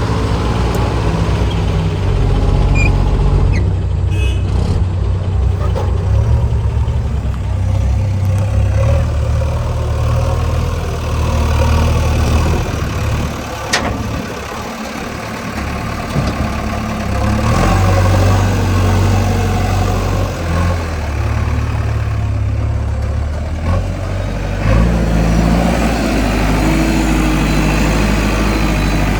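Diesel engine of a JCB 3DX backhoe loader running under changing load, its hum stepping up and down in pitch as it works, with one sharp click about halfway through.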